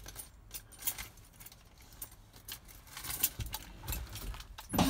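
Keys jangling and light clicking and handling rattles, with a sharper knock near the end.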